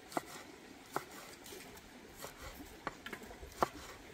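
Large knife slicing red chili peppers on a thick wooden chopping board: about half a dozen sharp knocks of the blade meeting the wood, irregularly spaced.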